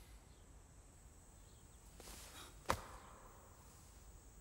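Quiet room tone, with a brief faint rustle and then a single sharp click a little past halfway.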